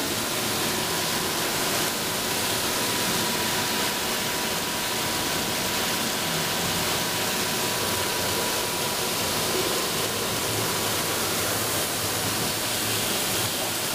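Beef gut processing machine running steadily, giving a constant even hiss with a faint high whine held throughout.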